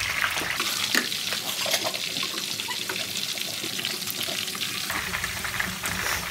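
Diced onion sizzling and crackling in hot oil in a nonstick wok, with a spatula stirring and scraping it around the pan. The onion is being sautéed until translucent.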